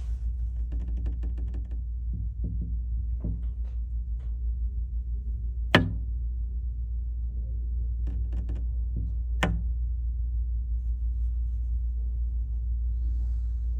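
Steady low rumble with a few sharp knocks and clicks over it, the loudest about six seconds in and another about three and a half seconds later.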